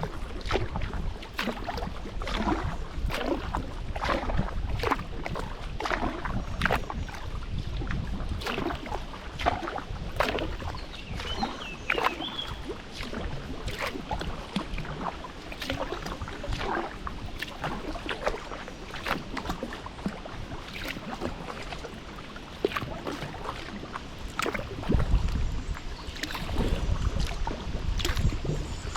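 Kayak paddle blades dipping into the water in a steady rhythm of splashes, a little faster than one a second. A low wind rumble on the microphone comes up near the end.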